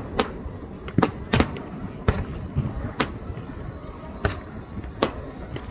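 Aerial firework shells bursting: a string of sharp bangs at irregular intervals, several a second or so apart.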